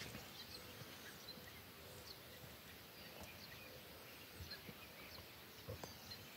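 Near silence: faint outdoor dawn ambience with a few distant bird calls.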